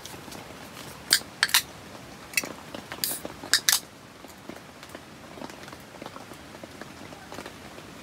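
Aluminium beer cans clicking and clinking as they are handled and brought together in a toast: a handful of sharp clinks between about one and four seconds in, with a short hiss about three seconds in.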